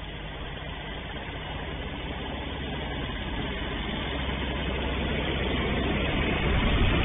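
Engine of an open-frame off-road buggy running as it drives up the road toward the listener, a steady low hum that grows steadily louder as it approaches.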